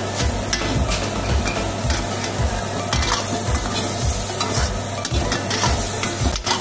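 A steel ladle stirs and scrapes crab masala around an iron wok in steady repeated strokes, while the thick gravy sizzles as it fries over the flame.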